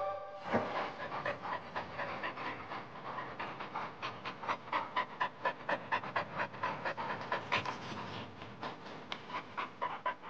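A French bulldog panting fast and steadily, about five breaths a second.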